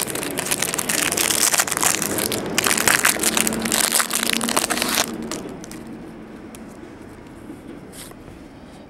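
Foil and plastic trading-card pack wrapping crinkling loudly as it is opened and the cards are slid out. About five seconds in it gives way to quieter card handling with a few light clicks.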